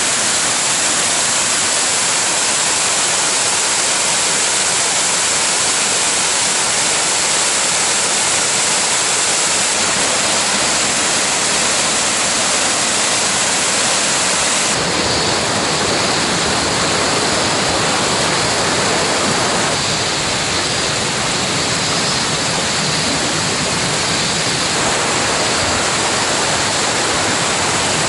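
Waterfall on a mountain stream: a loud, steady rush of falling water that changes tone abruptly about halfway through.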